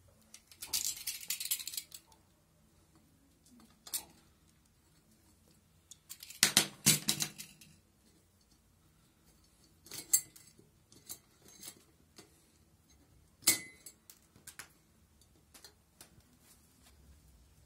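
Metal parts of a ceiling-lamp frame clinking and clattering as they are handled and fitted together. There is a scraping rustle about a second in, a louder clatter a little past the middle, and scattered single clinks in between.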